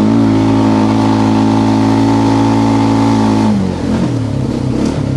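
Quad bike (ATV) engine working hard in four-wheel drive up a steep climb, held at steady high revs, then easing off about three and a half seconds in to a lower, uneven note.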